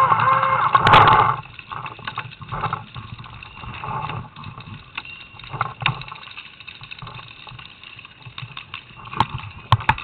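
A loud sound with steady held tones cuts off about a second in. After that come scattered sharp pops of paintball markers firing, with a few close together near the end.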